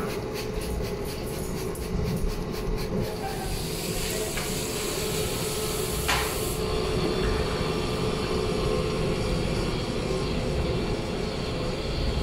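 Trigger spray bottle squirting soap solution onto a steel flat-top griddle: rapid repeated squirts for the first few seconds, then a longer hiss of spray that stops about halfway through. A steady low machinery rumble with a faint hum runs underneath and is the loudest sound throughout.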